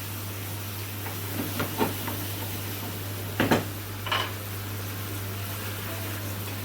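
Vegetables frying in oil and garlic in a pan: a steady sizzle over a low hum, with a few short knocks and clinks of kitchenware in the middle.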